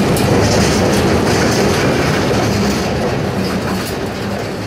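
Freight cars rolling past close by, their steel wheels running on the rails in a steady rumble that grows quieter toward the end.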